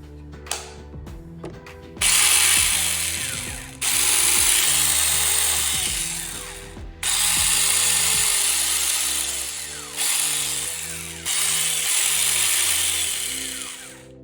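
Lernen 21 V cordless 4-inch electric pruning chainsaw running in five back-to-back runs of one to three seconds each, starting about two seconds in, over background music.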